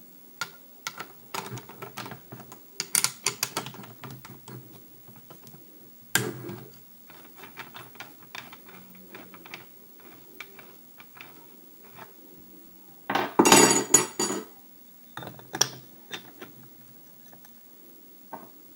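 An angle grinder and its parts being handled and fitted together by hand: scattered clicks, knocks and clinks of metal and hard plastic, with a louder rattling clatter lasting about a second and a half past the middle.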